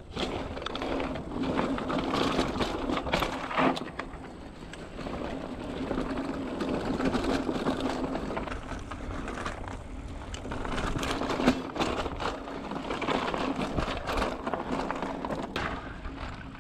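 Mountain bike riding down a dirt singletrack trail: tyres rolling and rattling over the ground, with a steady buzz under it and a few sharp knocks over bumps, the loudest a little past the middle.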